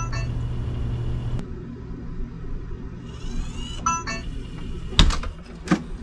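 August Smart Lock's motor whirring briefly as it turns the RV door's deadbolt, after a low hum that cuts off about a second and a half in. Two sharp knocks follow near the end.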